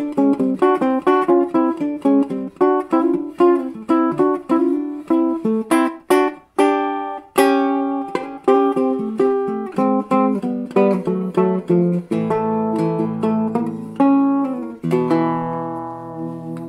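Acoustic guitar background music: a quick run of picked notes, then two ringing chords near the end that are left to fade.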